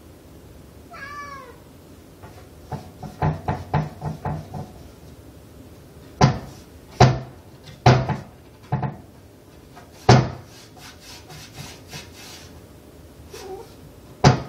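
A domestic cat meows once, then paws at a closed wooden door, making it knock and bang in its frame: a quick flurry of knocks, then several louder single bangs about a second apart, lighter rapid taps, and one last bang near the end.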